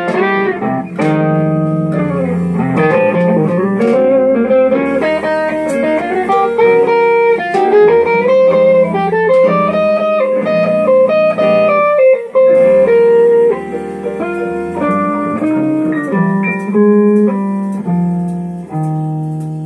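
Electric guitar playing a lead melody with string bends and held notes over steady lower notes. Near the end a last note is held and rings out, fading.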